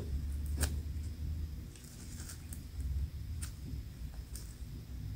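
Hands squeezing and turning a soft foam squishy toy: faint handling rustle with a few scattered soft clicks.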